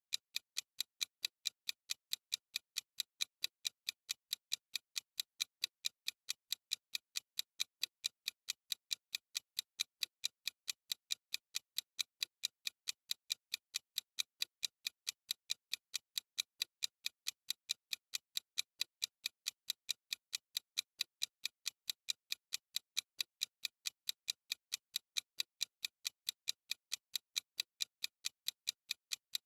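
Clock ticking sound effect: steady, evenly spaced sharp ticks, about two a second.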